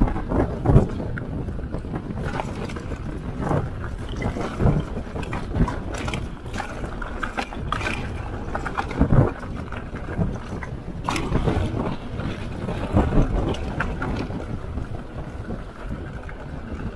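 Wind buffeting an action camera's microphone, with the rattle and irregular knocks of a mountain bike rolling fast over rough dirt singletrack.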